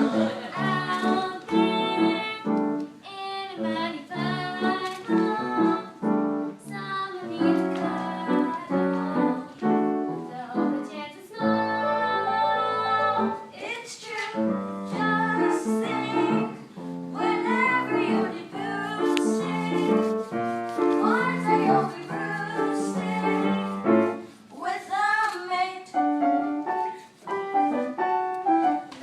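A song from a stage musical, sung over piano accompaniment.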